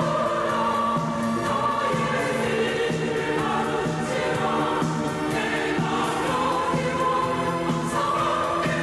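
A mixed choir singing a hymn, many voices holding sustained chords that move from note to note at a steady level.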